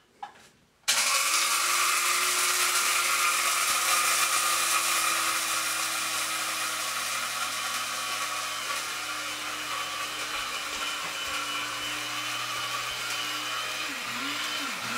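A small electric kitchen appliance motor starts abruptly about a second in and runs steadily with a loud whirring hum; near the end its pitch wavers up and down.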